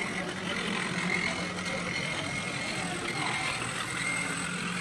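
Steady hall din with a low hum and faint distant voices, as a small model locomotive runs along the layout's track pulling skip wagons.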